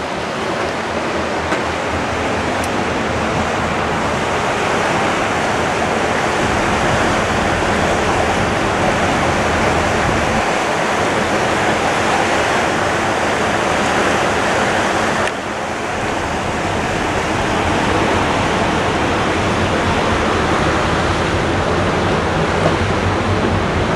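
Steady rushing noise of wind and churning wake water aboard the Hurtigruten ship MS Nordkapp under way, with a brief dip about fifteen seconds in.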